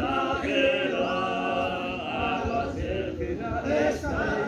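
A group of men chanting together in unison, with one long note held for about two seconds shortly after the start.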